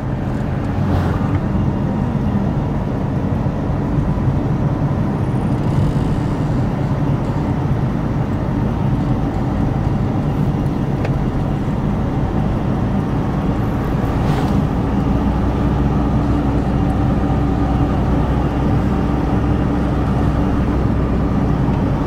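Car driving on the road, heard from inside the cabin: a steady low hum of engine and tyre noise.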